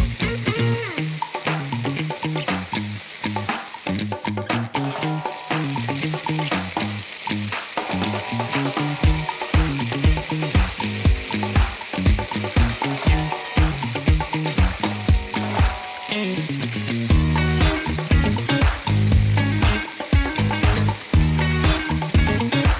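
Food sizzling in hot oil in a pan, a steady crackling hiss, with background music that has a regular beat.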